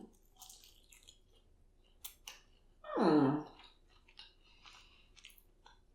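Mouth sounds of eating a Flamin' Hot Cheeto-coated chicken wing: scattered crisp crunching clicks. About three seconds in there is a short hummed 'mmm' that falls in pitch.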